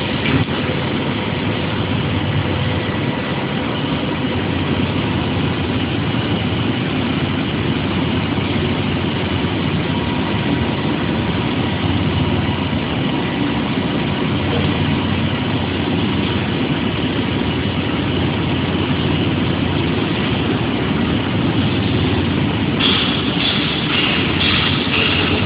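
Automatic pipe seam welding machine running, a steady noisy hum as its welding torch works along the seam. Near the end a pulsing high hiss joins in.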